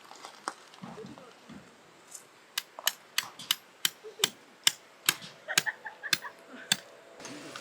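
A quick run of sharp taps, about three a second, starting a couple of seconds in and stopping near the end.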